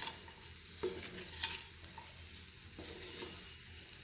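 Chicken fried rice sizzling in a hot pan as it is stirred, with a few short clicks of the stirring utensil against the pan.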